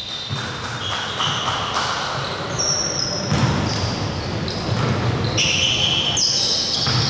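Basketball game on a gym court: the ball bouncing and sneakers squeaking in short high chirps, with players' voices.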